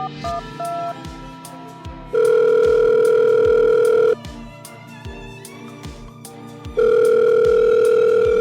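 Telephone dialing beeps finish, then a phone line's ringing tone sounds twice, each ring a steady two-second tone with a pause between, over music with a regular low pulse.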